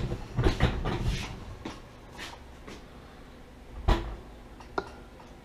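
Metal clinks and knocks from handling the collet and drawbar at a lathe spindle while an end mill is being tightened in by hand. A cluster of clatters comes about half a second to a second in, a sharp knock near four seconds, and a lighter click shortly after.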